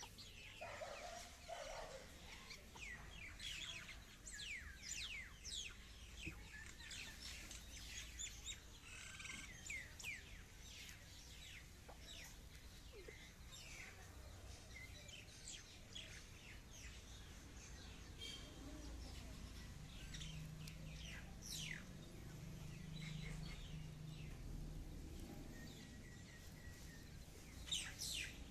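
Faint birds chirping and calling, many quick sweeping chirps, with a low drone for several seconds past the middle.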